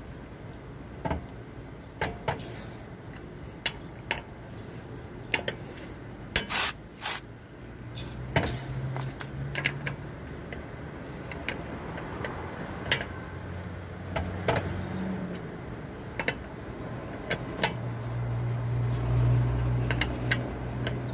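L-shaped steel lug wrench clicking and clinking on a car wheel's lug nuts as they are tightened by hand, in scattered sharp clicks. A low steady hum comes in about a third of the way through and grows louder near the end.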